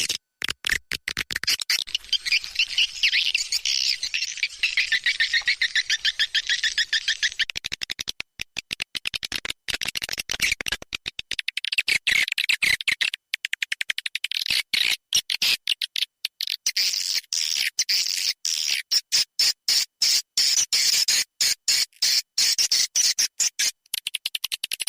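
Recorded edible-nest swiftlet calls: fast, high twittering and chattering trills, broken by many brief gaps. This is a looped lure call played to draw swiftlets into a swiftlet house.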